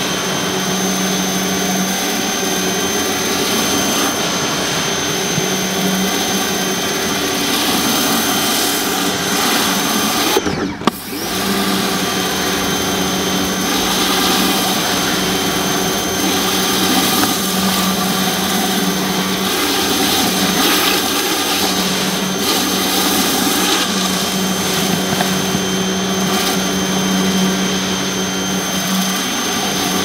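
Pressure washer running with a Ryobi surface cleaner attachment, its spinning spray bar blasting water onto concrete under the hood: a steady machine whine over a hiss of spray. The sound briefly drops out and picks back up about ten seconds in.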